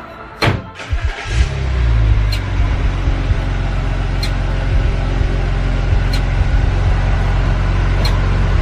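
A few clicks, then a motor starts about a second and a half in, swells up and runs with a steady low hum, with faint ticks every couple of seconds.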